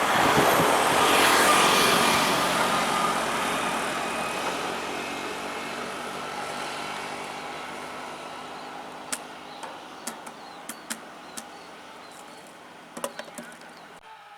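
A heavy vehicle passes close by and pulls away, its engine and road noise fading steadily over several seconds. A few sharp clicks come in the second half.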